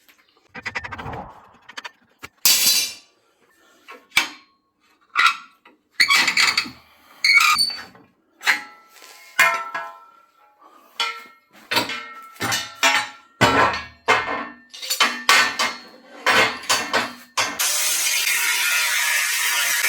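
Steel parts clanking and being knocked about, in a rapid irregular run of sharp metallic strikes, some of them ringing. Near the end a power tool starts and runs with a steady harsh sound.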